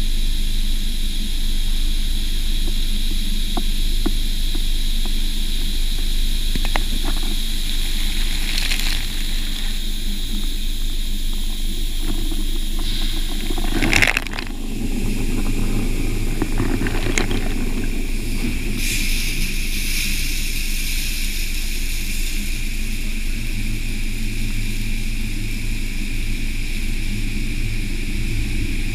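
Automatic car wash tunnel running with a steady machine hum. About halfway through, a sudden blast of water spray hits the open cabin of a top-down convertible and the microphone, followed by steady spraying and splashing.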